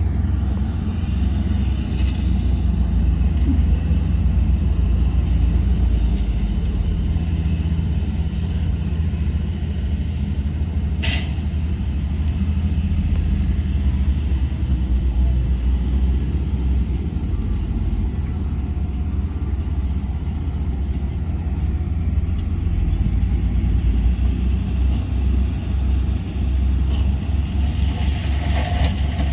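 Heavy diesel earthmoving machinery running steadily with a deep engine rumble, with one brief sharp sound about a third of the way in.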